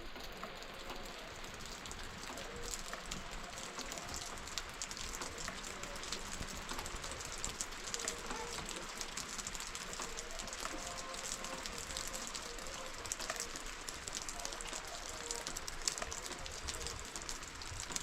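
Steady rain falling, with many small drop ticks on a hard surface.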